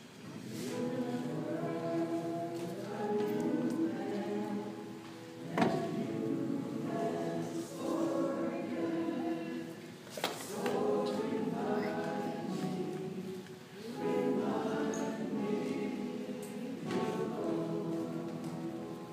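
Small choir singing a slow hymn in long held phrases with short breaks between them. A sharp knock sounds about five and a half seconds in.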